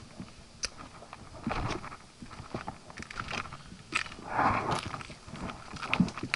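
A hiker's footsteps on a rocky trail: irregular boot steps with scuffs and sharp clicks on the rock, about one or two a second.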